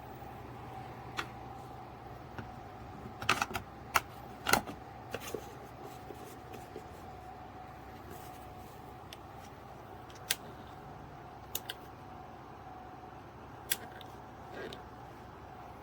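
Ultrasonic cool-mist humidifier running on high with a steady hum. Scattered sharp clicks and taps sit over it, the loudest cluster about three to four and a half seconds in.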